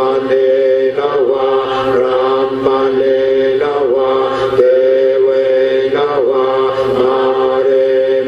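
Buddhist chanting: voices recite on a near-steady pitch, with short breaks and slides between phrases about once a second.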